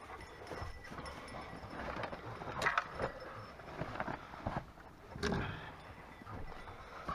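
Irregular rustling with scattered clinks and knocks, two of them louder, about two and a half and five seconds in.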